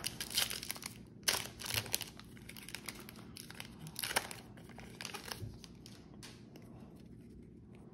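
Foil wrapper of a Yu-Gi-Oh booster pack being torn open and crinkled by hand: a run of irregular crackly rustles, loudest about a second in and again about four seconds in, thinning out near the end.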